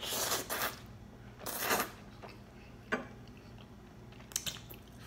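Spaghetti slurped into the mouth in two noisy pulls, then quiet chewing with a few short clicks from the mouth.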